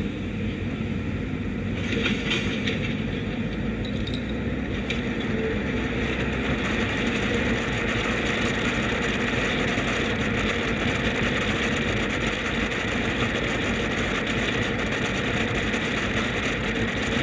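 Tyre and road noise of a 2017 Audi Q7 rolling along, with wind on a microphone mounted outside beside the rear wheel. It grows louder about two seconds in and again around six seconds in, then holds steady.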